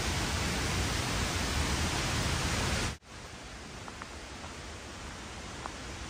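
Giesbach waterfall's rushing water, a loud, even, steady noise, cut off abruptly about three seconds in. A much quieter steady outdoor hiss follows, with a few faint ticks.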